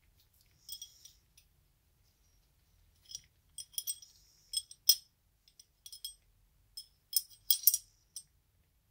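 Small steel parts of a Colt 1908 Vest Pocket pistol, the barrel and slide, clicking and clinking lightly against each other as they are handled and fitted together. The clicks come irregularly in small clusters, each with a short metallic ring, loudest around the middle and near the end.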